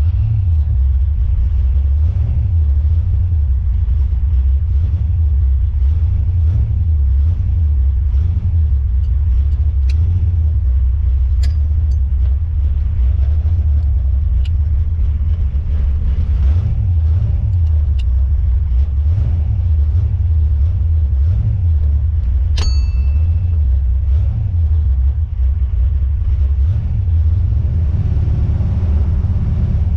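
Car driving: a steady low rumble of road and engine noise, with a few sharp clicks from the rear of the car over bumps, one of them ringing briefly. The cause of the clicking is unknown; the owner wonders whether it is in the coilovers.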